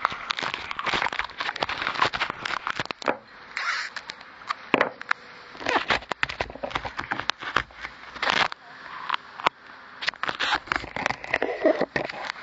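Handling noise from a 360 camera: fingers rubbing, tapping and gripping right at the camera body, giving irregular crackles, clicks and rustles.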